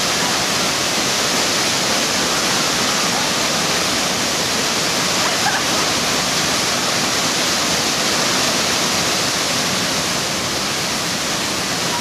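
Waterfall close by: a loud, steady rush of falling water.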